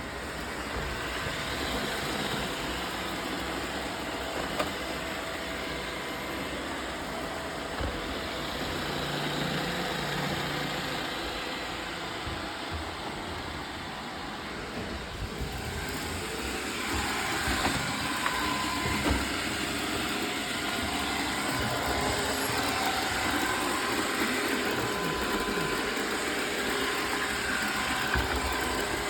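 Roomba robot vacuums running: a steady motor-and-brush whir that grows brighter a little over halfway through, with a few short knocks.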